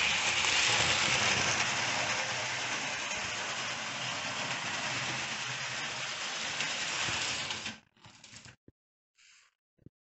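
Hornby OO gauge 0-4-0 tank engine running with its coaches: the small electric motor and gears whirring and the wheels rattling over the sectional track in a steady mechanical buzz. It eases slightly, then cuts off abruptly about eight seconds in.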